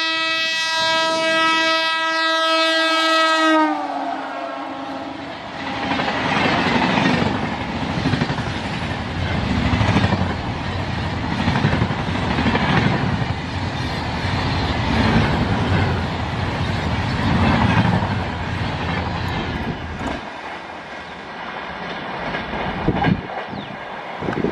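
WAP-7 electric locomotive's horn sounding one long blast that drops slightly in pitch as it ends, then the express's LHB coaches rushing past at speed with rhythmic wheel clatter swelling every couple of seconds, dying down a little after twenty seconds as the last coach goes by.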